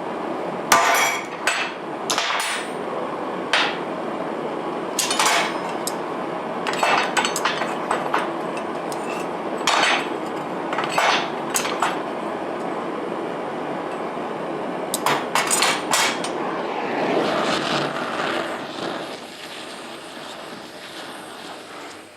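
Hammer striking steel, about a dozen sharp, irregularly spaced blows, some in quick pairs, over a steady rushing noise that fades away near the end.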